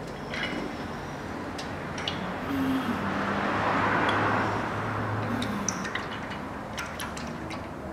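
Engine oil trickling from the sump drain hole into a metal drain pan as the last of the old oil runs out, a steady hissing pour that swells for a couple of seconds in the middle. A few light clicks and clinks come from the pan being handled.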